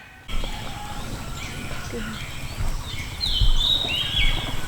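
Outdoor farmyard ambience that starts abruptly. Birds give short high chirps and calls, and a couple of low thumps come a little past halfway.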